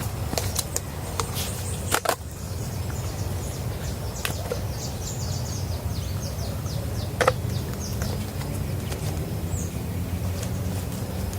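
Outdoor bush ambience: a bird calling in a quick run of short high notes, with two sharp knocks, one about two seconds in and one about seven seconds in, over a steady low rumble.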